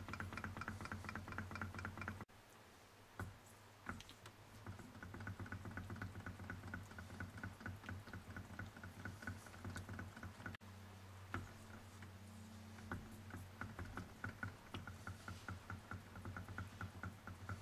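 Model Ringbom Stirling engine with a revolving cylinder running at about 250 to 300 rpm: a fast, even ticking over a low steady hum. The ticking fades for a couple of seconds about two seconds in, then picks up again.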